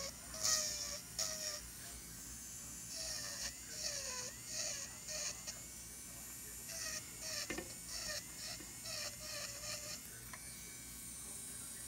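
Electric nail drill with a fine callus bit grinding dry cuticle and callus around a thumbnail in short, repeated strokes. The motor's pitch drops each time the bit presses into the skin, over a gritty hiss.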